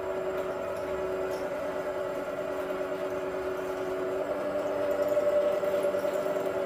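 Homemade ride-on miniature train running along its track toward the listener, its drive giving a steady pitched hum. The hum grows louder about five seconds in as the train comes closer.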